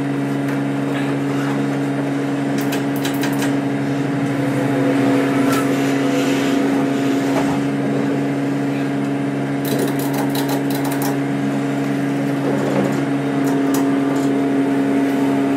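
Ratchet strap being threaded and cranked tight around a load, short runs of sharp ratchet clicks about three seconds in, around ten seconds in and again near the end, over a steady low mechanical hum.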